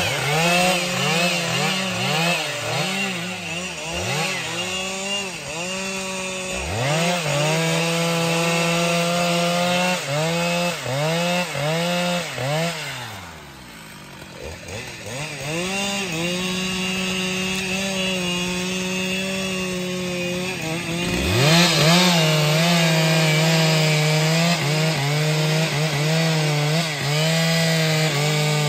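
Stihl MS 881 two-stroke chainsaw cutting through a thick log, its engine pitch sagging and recovering repeatedly as the chain works in the wood. It drops to a lower, quieter running about halfway, then revs back up a little after twenty seconds into a long, steady full-throttle cut.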